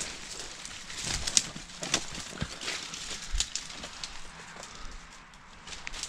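Footsteps and rustling as someone pushes through dry brush and undergrowth, with scattered sharp crackles and crunches of twigs and leaves underfoot.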